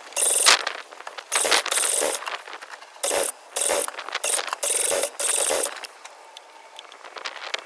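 Cordless power tool run in short bursts, about seven pulls of the trigger of a third to half a second each, with a high whine in each burst.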